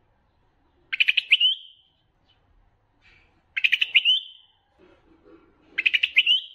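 White-eared bulbul song: three short phrases a couple of seconds apart, each a quick run of chattering notes ending on a rising whistle. It is a recorded bulbul call of the kind played to caged bulbuls to stir them into singing.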